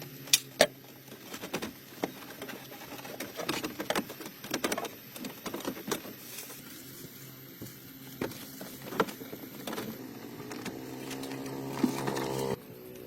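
Scattered sharp clicks and knocks over a low steady hum, with a pitched drone building up later that cuts off suddenly near the end.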